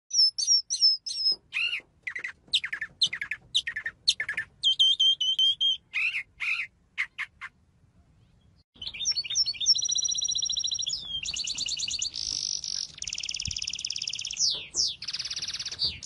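Mockingbird singing a varied string of short whistled and chirped phrases. After a brief pause about nine seconds in, a louder run of fast trills and buzzy rattles follows.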